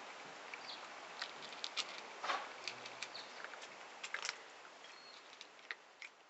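A cat crunching dry kibble: irregular crisp crunches and clicks, thickest about two seconds in, over a steady hiss.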